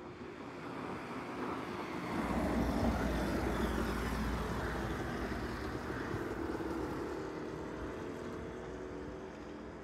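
A motor vehicle passing on the road: a deep rumble that swells about two seconds in and slowly fades away.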